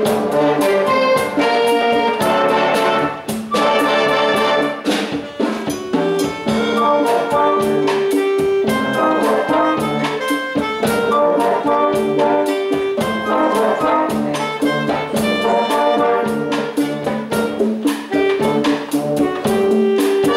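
Youth wind band playing a Cuban-style tune: trumpets, trombones and other winds over a steady rhythmic beat.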